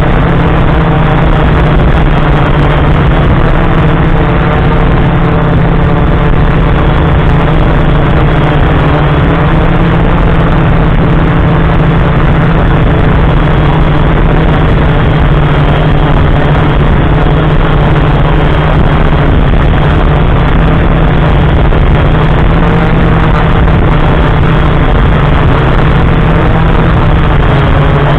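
FPV quadcopter's motors and propellers, heard through the onboard camera's microphone, running with a steady, loud drone and a slightly wavering pitch throughout the flight.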